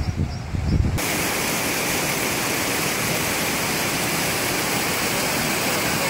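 A low rumble of wind on the microphone, then about a second in, the steady rush of a cascading mountain stream running over rocks.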